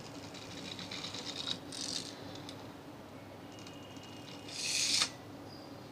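Small die-cast metal pull-back toy car rolled on a wooden tabletop. Its spring motor rattles with fast clicking as it is wound back, and about five seconds in there is a louder rushing whirr that cuts off suddenly as the car runs.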